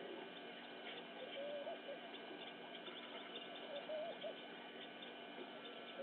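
Birds calling: a short, wavering, cooing call repeated about every two and a half seconds, with faint high chirps from other birds.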